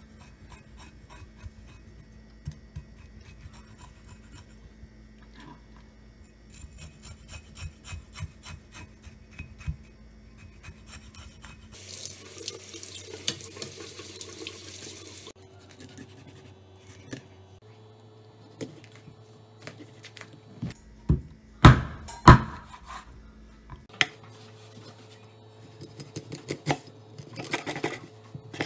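Knife blade scraping the scales off a pomfret on a wooden cutting board in quick repeated strokes, then a tap running into a stainless steel sink for a few seconds while the fish is rinsed. After that, knife cutting on the board, with a few loud knocks of the blade about two-thirds of the way through and more scraping near the end.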